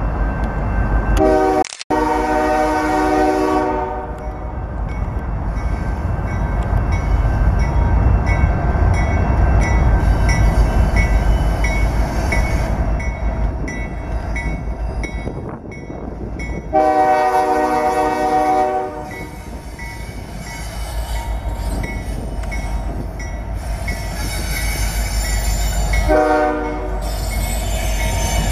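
Freight train led by a Canadian Pacific diesel locomotive and a Kansas City Southern unit rumbling past, with the lead locomotive's horn sounding three times: a long blast about a second in, another about seventeen seconds in, and a short one near the end. A grade-crossing bell dings steadily underneath.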